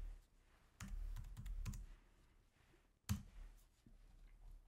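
Faint computer keyboard typing in two short runs of keystrokes, then a single sharper click about three seconds in.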